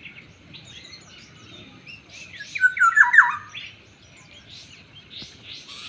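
Black-naped oriole giving a loud, harsh call with a few sharp falling notes about two and a half seconds in, over steady high chirping and trilling from small birds.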